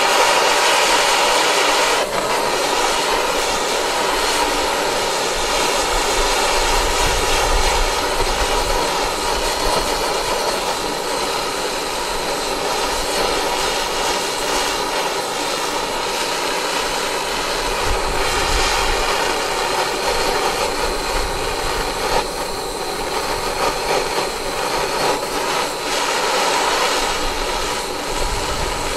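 Handheld butane gas torch burning with a steady hiss as its flame heats a steel knife tang, the first step in burning the tang into a wooden handle.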